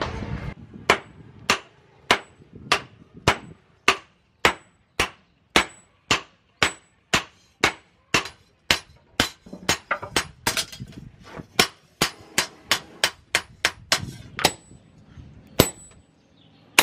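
Hand hammer forging a red-hot leaf-spring steel knife blank on an anvil. Sharp metallic blows come in a steady rhythm of about two a second, speed up to about three a second in the middle, and then thin out near the end. Most blows leave a short, high ring.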